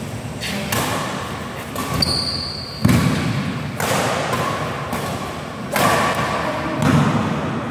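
Badminton rally: racket strings hitting the shuttlecock about once a second, each hit echoing in the hall, the loudest about three seconds in. Shoes squeak briefly on the court floor about two seconds in, and footfalls thud between the hits.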